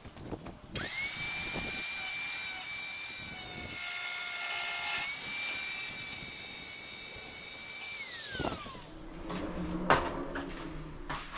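Angle grinder switched on and cutting along the edge of a stone benchtop slab: a steady high whine with a harsh grinding hiss, dipping slightly under load. Near the end it is switched off and the whine falls away as the disc winds down, followed by a couple of knocks.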